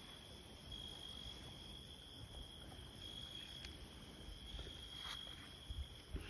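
Crickets singing, a steady high-pitched trill with brief breaks, over a low rumble, with a few soft knocks near the end.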